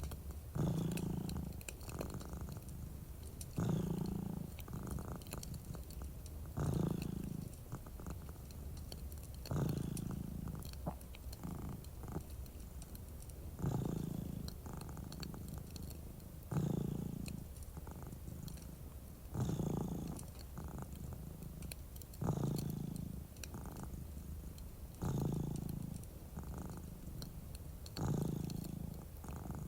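A domestic cat purring close up, in slow cycles that swell about every three seconds with each breath. Faint crackling from a wood fire runs underneath.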